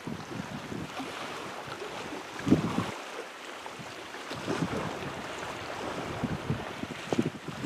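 Wind buffeting the microphone in gusts over a steady outdoor hiss, the gusts strongest about two and a half seconds in and again near the end.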